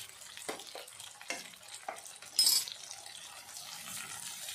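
A silicone spatula stirs salt into a grated-tomato masala in a nonstick kadai, with a light frying sizzle and soft scrapes against the pan. There is one brief, louder scrape about two and a half seconds in.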